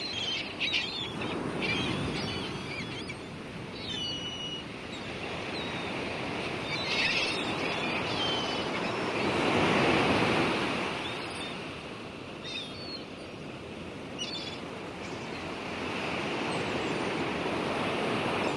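Sea waves washing in, a rushing noise that swells and ebbs, loudest about halfway through, with short high chirps scattered over it.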